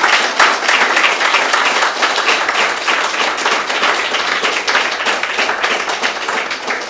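Audience applauding, dense clapping that slowly tapers off toward the end.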